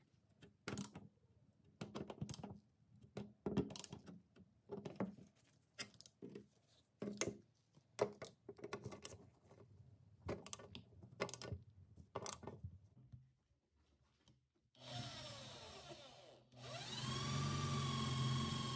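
Irregular scraping and knocking of hand tools working at the old saw's handle screw. Near the end an electric drill whirs briefly, stops, then spins up and runs steadily as it drills into the handle screw.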